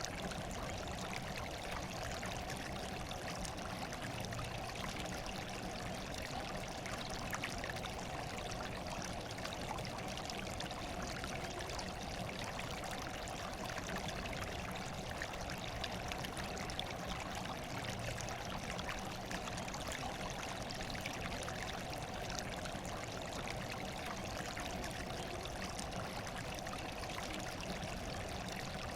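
Running water trickling and splashing steadily, a constant natural white noise.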